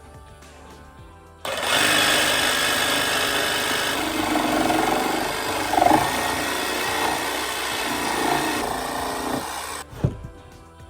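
Electric power saw cutting a curve into a window sill, starting about a second and a half in, running steadily for about eight seconds and stopping abruptly, followed by a short knock.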